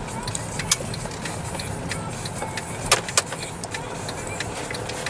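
Car cabin noise while driving slowly: a steady low engine and road rumble, with scattered sharp clicks and ticks, a few louder ones among them, one near the start and two close together about three seconds in.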